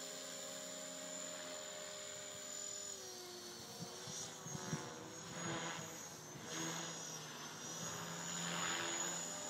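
Align T-Rex 500 electric RC helicopter flying at a distance: a steady high-pitched motor whine over the rotor hum. From about three seconds in the pitch dips and wavers as it manoeuvres, and a few swells of rushing noise come and go.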